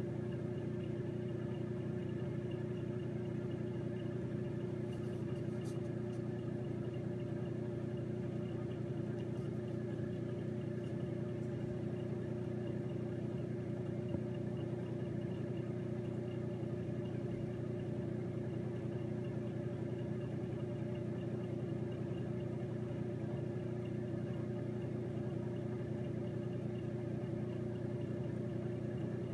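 Steady machine hum made of several fixed tones, unchanging in level.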